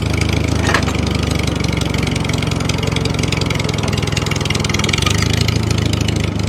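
Engine running steadily at an even speed, with a low, rapid pulsing throb.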